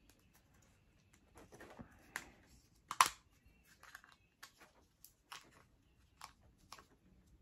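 Scattered light clicks and rustling from hands handling the plastic parts of a gel ball blaster, with one sharper click about three seconds in.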